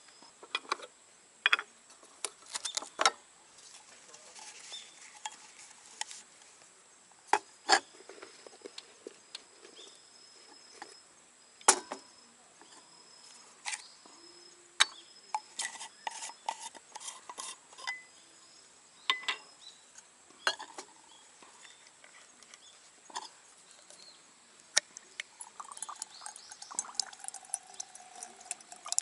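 Light metal clinks and clatter as the aluminium pieces of a Trangia Storm Cooker (windshield, pot supports, pans) are handled and set in place, a sharp knock every second or so. Near the end, alcohol fuel trickles from a fuel bottle into the brass spirit burner.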